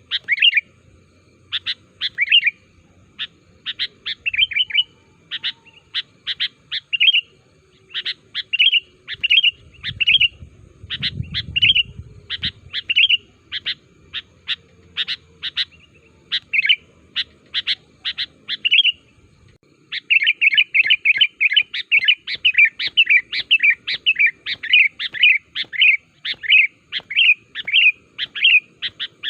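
Sooty-headed bulbul singing: short bubbly phrases of quick notes, repeated about once a second. About two-thirds of the way in, the song turns into a fast, nearly continuous run of notes.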